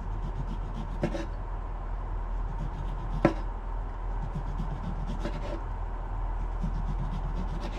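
Kitchen handling sounds while burgers are assembled: light scraping and clatter of a utensil on a pan or plate, with two sharp taps about a second in and a little after three seconds, over a steady low hum.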